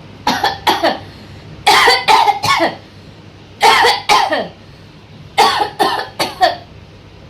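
A person coughing in four short fits of two or three harsh coughs each, with brief pauses between the fits.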